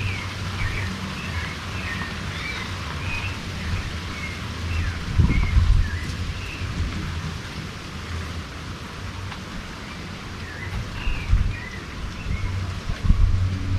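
Coffee plantation outdoor ambience: small birds chirping over a steady hiss, with a low hum underneath and a couple of low gusts of wind on the microphone.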